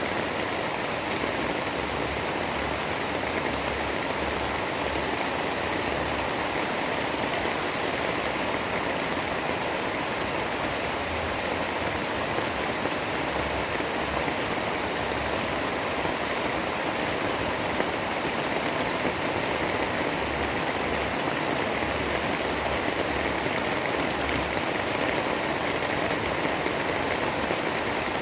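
Steady, even rush of heavy rain.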